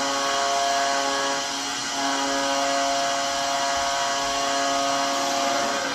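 Tampa Bay Lightning arena goal horn, played from a recording: one long, steady blast of several tones at once, cutting off near the end.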